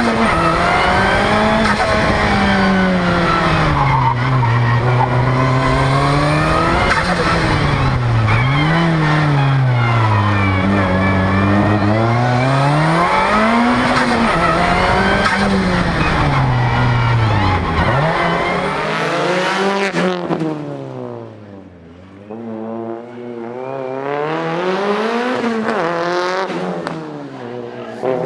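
Nissan Pulsar GTI-R's turbocharged 2.0-litre four-cylinder engine driven hard, the revs climbing and falling again and again through gear changes and lifts. About two-thirds of the way through it fades well down, then builds back up and is loud again near the end.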